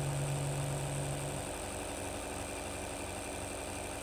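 Homemade JL-94 motor-generator with a magnet rotor over acrylic-framed copper coils, running steadily while it charges a 12 V battery: a continuous machine hum with a high steady whine. A strong low hum in it stops about a second and a half in, and the sound gets a little quieter.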